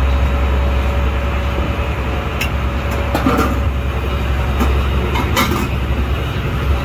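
Fishing boat's inboard engine running with a steady low drone. A few light clinks and taps, such as plates or utensils, come in the middle.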